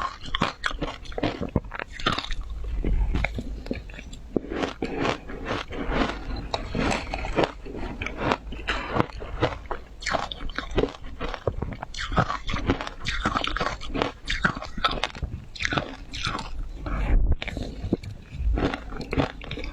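Someone biting and chewing frozen flavoured ice, a rapid run of crisp, irregular crunches, several a second, without a break.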